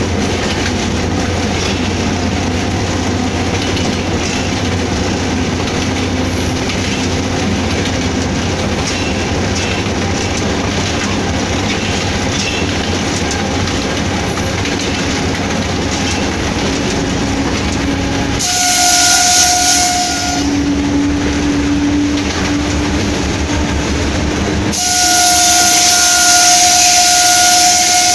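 Hitachi diesel-electric locomotive running steadily, heard from inside its cab, with a steady low rumble from engine and wheels on the rails. About two-thirds through, its air horn sounds a short blast of a couple of seconds, then a second, longer blast near the end.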